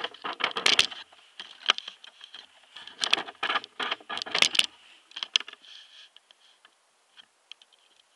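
Handling noise from a handheld camera being carried and set down: a dense run of clicks, knocks and rustles for about five seconds, then it goes nearly quiet.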